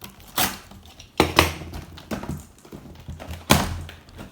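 Hands working at the tape on a cardboard toy box: a series of short, sharp scrapes and knocks of cardboard and plastic, the loudest just over a second in and again about three and a half seconds in.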